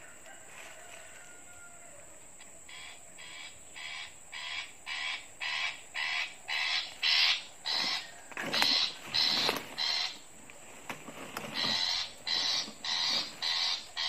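Recorded long-tailed shrike (pentet) calls played as a trapping lure: a rapid series of harsh, rasping calls, about two a second, starting a few seconds in and growing louder, with a short break near the ten-second mark.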